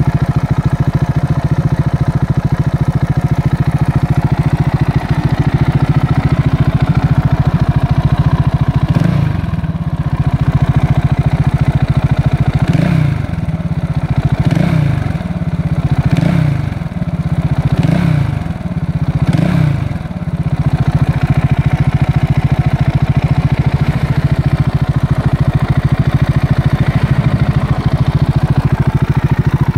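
KTM 690 Duke single-cylinder engine idling through an Akrapovic exhaust fitted with its dB-killer baffle, blipped about six times in quick succession around a third of the way in, each rev rising and dropping back, before settling to a steady idle again.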